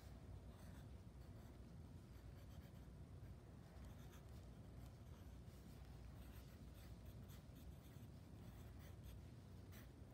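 Faint scratching of a pencil on paper, in many short strokes as words are handwritten.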